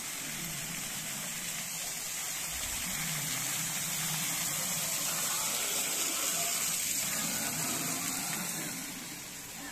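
Water falling from an artificial rock waterfall and splashing onto stones and into a shallow pool: a steady rush that grows louder toward the middle and fades near the end.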